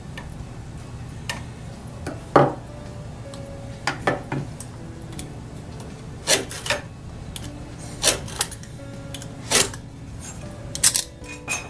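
Utility knife blade scoring a cross-grain line into a softwood block, drawn along a steel square. It makes short scraping strokes with light metallic clicks, about one every second or two and some in quick pairs.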